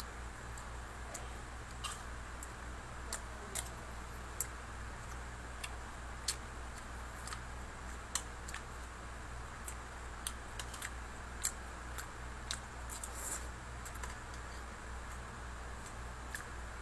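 Irregular small clicks and taps of a metal spoon and fork against a plate while eating noodles, over a steady low hum.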